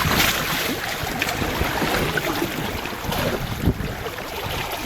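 Wind buffeting the microphone on a small sailboat under way, with water washing and splashing around the hull.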